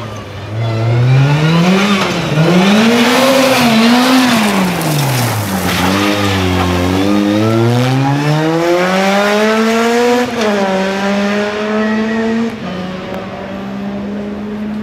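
Rally car engine revving hard, its pitch climbing and dropping again and again with gear changes and lift-offs. About seven seconds in it makes a long rising pull that breaks off at a shift. Near the end the engine holds a steady note.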